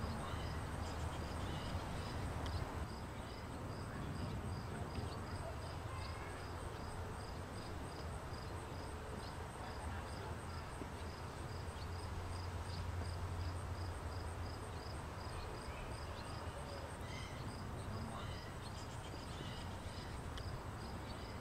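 Outdoor ambience: a steady low rumble under insects chirping at an even rate, about two chirps a second.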